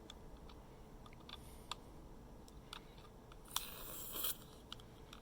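Small scattered clicks of hands handling the airsoft pistol and its CO2 cartridge, with a brief hissing rush lasting under a second about three and a half seconds in.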